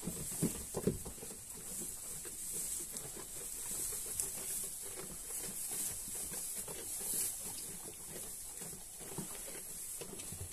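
Sheep and lambs moving about in a pen, with rustling and shuffling. There are two soft low bumps in the first second.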